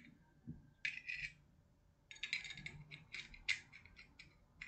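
Metal tweezers clicking and scraping against the metal insert of a Zippo lighter, in short bursts of light metallic scratching: one brief group about a second in, then a busier run from about two to four seconds in.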